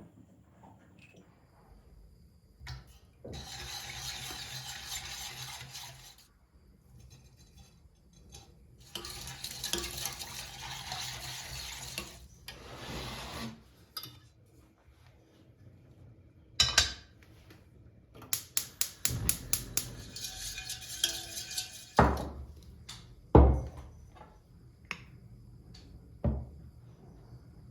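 Kitchen sink work: tap water runs in two stretches of a few seconds, then dishes and pans knock and clatter, with a quick run of rapid strokes and a loud clunk near the end.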